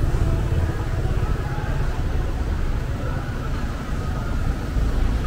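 Street traffic of cars and motorbikes running slowly close by: a steady low engine rumble.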